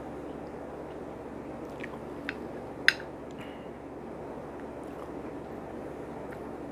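A person chewing food during a meal, with a few short sharp clicks, the loudest about three seconds in, over a steady background hum.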